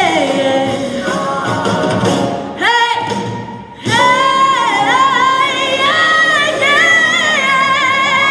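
A group of women singing, with a short break about three and a half seconds in before a long held note with vibrato.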